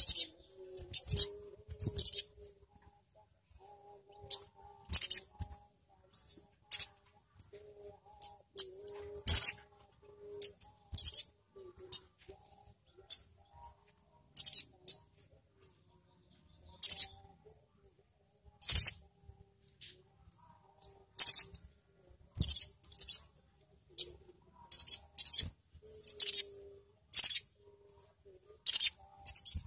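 Olive-backed sunbird calling: short, sharp, very high-pitched chirps and twitters, coming singly or in quick clusters with gaps of a second or two between them.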